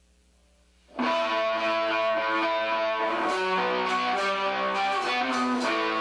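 Near silence with a faint hum, then about a second in an amplified electric guitar starts abruptly and plays a line of held notes.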